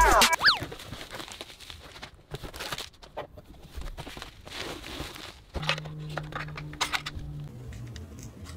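Bubble wrap and cardboard rustling and crinkling as hands unpack a shipping box, with scattered light crackles and taps. A brief falling tone sounds just after the start.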